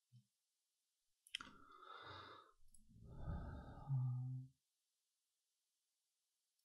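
A man sighing: a breathy exhale of about three seconds that ends in a brief low hum, with a sharp click just before it.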